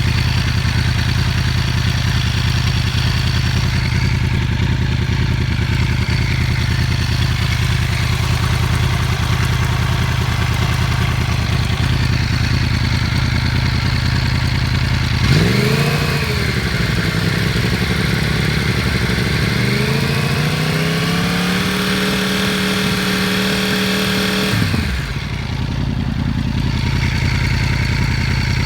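Yamaha R1 sport bike's inline-four engine idling steadily, blipped up and back down about fifteen seconds in, then raised to a held higher rpm for a few seconds before dropping back to idle.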